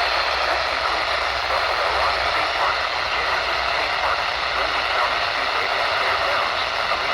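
A steady, even hiss with no clear events.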